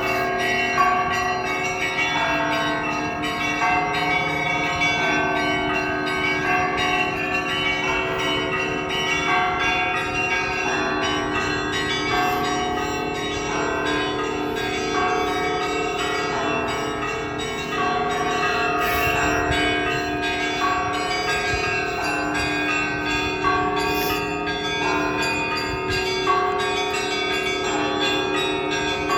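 Russian Orthodox church bells rung by hand in a continuous peal: many bells struck in quick succession, their tones ringing on and overlapping without a pause.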